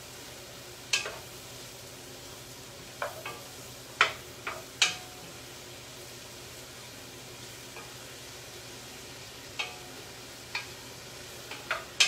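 Mushrooms sautéing in a pan with a steady soft sizzle, stirred by hand, the utensil knocking against the pan about ten times at irregular intervals.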